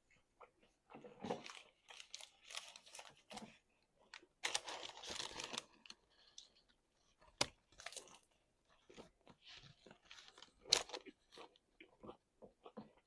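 Close-miked chewing and crunching of food in irregular bursts, with a couple of single sharp clicks later on.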